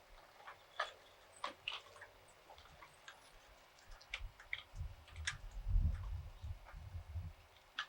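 Scattered small clicks and taps, with a low rumbling thud-like noise in the middle few seconds, as of objects being handled close to the microphone.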